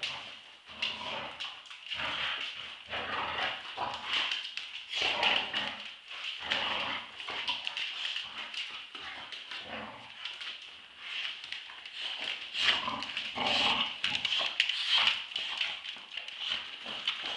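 Two Staffordshire bull terriers play-fighting over a tug toy, with near-continuous high whining and irregular rough vocal bursts. Their paws scuffle and click on the hard floor.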